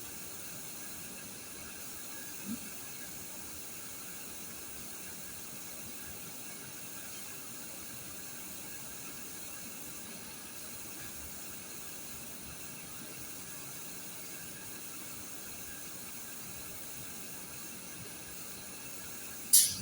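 Steady faint hiss of background noise, with a sharp click near the end.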